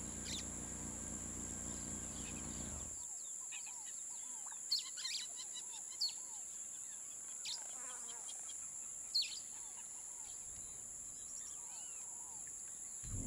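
Outdoor nature ambience: a steady high-pitched insect drone, with birds calling over it. There are several sharp chirps between about five and nine seconds in, and softer rising-and-falling calls. A low rumbling hiss fills the first three seconds, then drops away.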